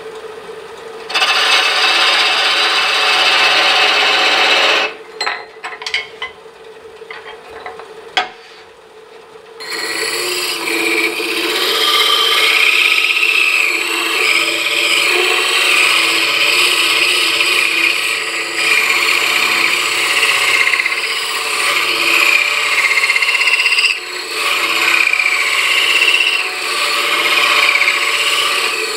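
A hand-held hole saw pressed over a small wooden ball spinning on a wood lathe, rasping it into a true sphere. The rasping is loud for a few seconds, drops away for a few seconds with a few light clicks, then resumes as steady scraping from about ten seconds in.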